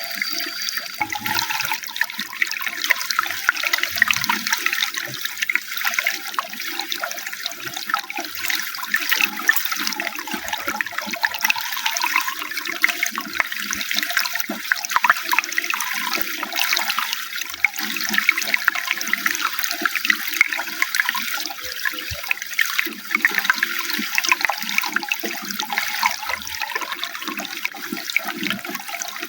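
Running water flowing steadily: a continuous splashing rush with irregular low gurgles.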